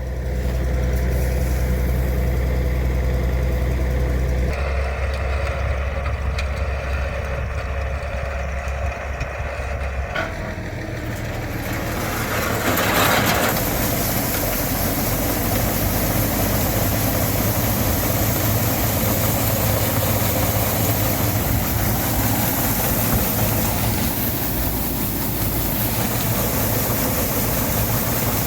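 Diesel farm tractor and pull-type grain combine running steadily in the field. The sound changes about 4 and 10 seconds in. From about 12 seconds on, a denser, rushing machine noise fills in.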